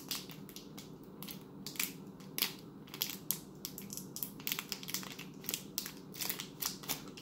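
Small plastic toy wrapper being picked and torn open by hand: a run of irregular crinkles and crackles.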